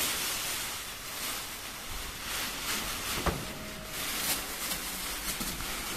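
Black plastic peel-collection bag rustling and crinkling as it is handled and fitted into an orange-juice vending machine, with one sharper knock about halfway through.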